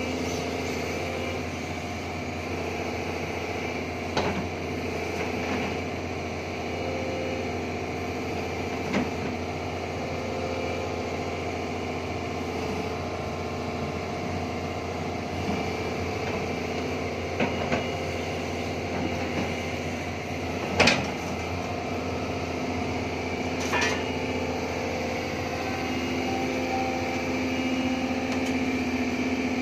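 Doosan DX140AF excavator running steadily while its hydraulics raise the boom and grapple, with several short sharp knocks, and a slight rise in loudness near the end.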